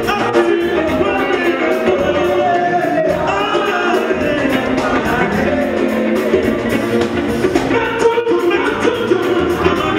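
Live gospel music: men singing into microphones over a band of electric guitar and drums, with a steady beat.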